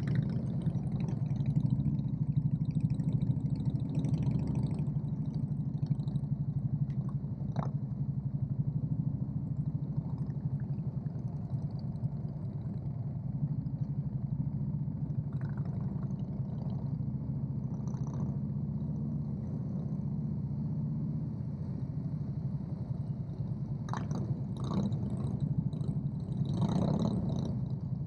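Motorcycle engine running steadily at low road speed, heard from the rider's seat in a line of motorcycles. A few brief clicks come about eight seconds in and again near the end.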